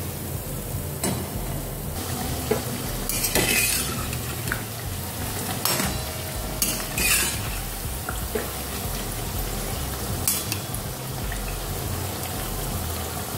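Khari puris deep-frying in hot oil in a steel kadhai with a steady sizzle, while a perforated steel slotted spoon scrapes and clinks against the pan several times as the puris are turned.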